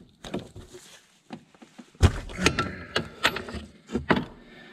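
Half-inch-drive ratchet and 21 mm socket working a tight fill plug on a Yamaha Viking's front differential: scattered metallic clicks and knocks, the loudest about two seconds in.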